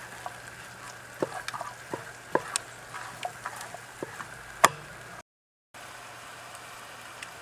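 Utensil clinking and knocking against a pan of chicken and vegetables cooking over a campfire: a string of sharp clicks over a steady hiss. The sound drops out briefly about five seconds in, then only the steady hiss remains.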